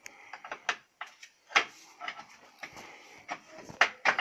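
A string of irregular clicks and light taps as hands handle the wiring and plastic fittings of an old wall-mounted electrical board.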